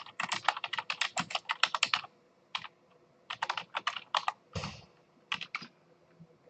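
Typing on a computer keyboard: a quick run of keystrokes for about two seconds, then, after a short pause, slower scattered keystrokes with one heavier stroke around the middle, stopping shortly before the end.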